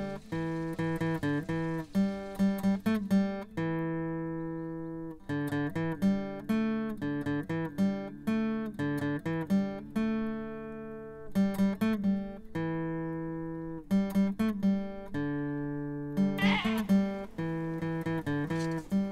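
Acoustic guitar music: quick runs of picked notes, each run followed by a note or chord left ringing out.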